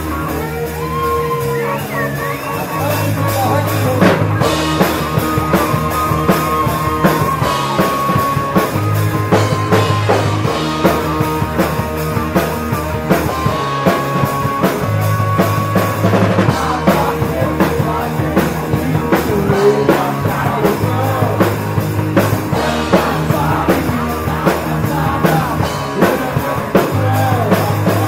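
A live rock band playing a song intro: an electric guitar riff over a repeating bass line, with the drum kit coming in about four seconds in.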